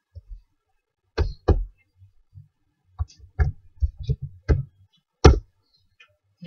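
A string of irregular knocks and thumps, about a dozen over several seconds, with the loudest one about five seconds in.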